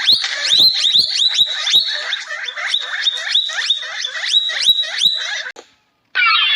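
An animal calling in a fast series of short, sharp, high calls, about three to four a second, that stops suddenly near the end.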